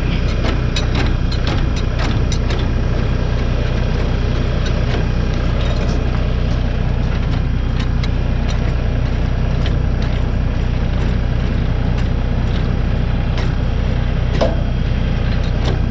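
Ford pickup truck's engine idling steadily, with scattered metal clicks and clanks from the trailer hitch, spring bar and safety chains being handled.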